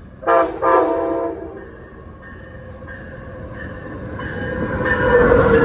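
Train horn sounding two short blasts, the second held a little longer, followed by the train's rumble growing steadily louder as it approaches.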